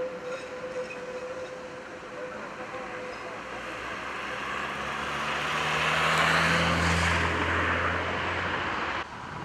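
Tatra T4D-C tram rolling away through a curve, a steady whine fading in the first second. A road vehicle then passes close by, its engine and tyre noise rising to a peak about six to seven seconds in, and the sound cuts off suddenly near the end.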